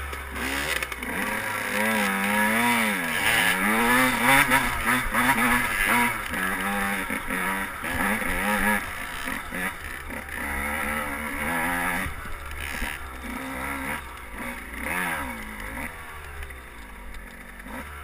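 Dirt bike engine under way, its pitch rising and falling repeatedly as the throttle is worked and gears change, with wind rumble on the microphone. It eases off toward the end as the bike slows.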